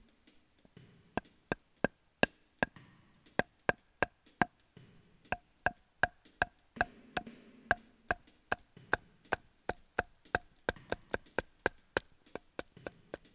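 A wooden baton striking the spine of an LT Wright GNS fixed-blade knife, an O1 tool-steel Scandi grind, driving it down through a split of soft tulip poplar. The blows come steadily, a little more than two a second, starting about a second in. Each is a sharp knock with a brief ring.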